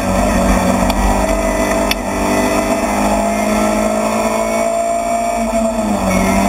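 Rally car engine heard from inside the cockpit, pulling hard along the stage with the revs climbing slowly. The revs drop sharply near the end at a gear change.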